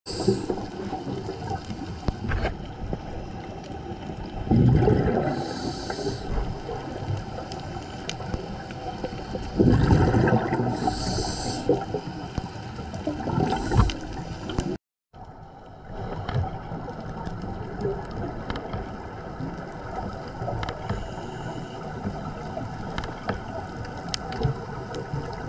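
Scuba regulator breathing heard underwater. Twice in the first half, a rumble of exhaled bubbles is followed by the hiss of an inhale. After a brief dropout about halfway, steady underwater noise with scattered faint clicks continues.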